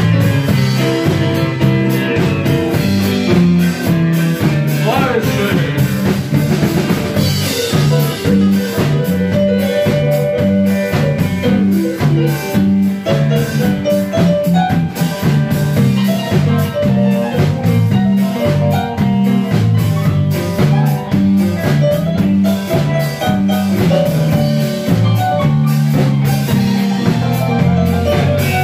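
Blues band playing live, with a drum kit keeping a steady beat under guitar; a few sliding notes about five seconds in.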